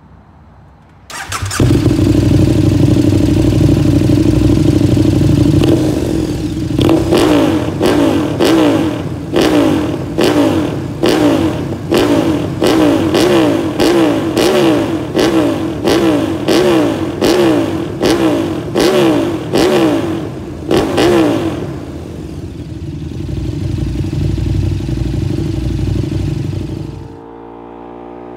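KTM 1290 Super Duke R's V-twin engine with an Austin Racing slip-on exhaust, coming in suddenly about a second in and idling, then revved in about fifteen quick throttle blips roughly one a second, settling back to idle before cutting off near the end.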